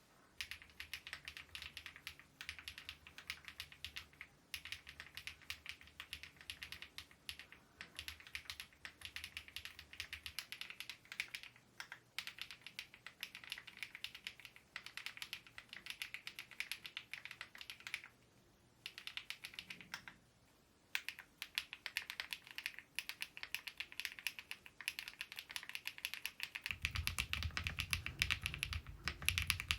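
Fast typing on an Epomaker EK75 mechanical keyboard: a dense, continuous run of keystroke clacks, broken by two short pauses about two-thirds of the way through. A low hum comes in near the end.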